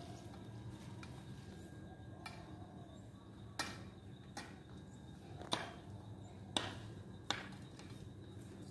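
About six sharp knocks or strikes at irregular intervals, the loudest in the second half, over a low steady hum.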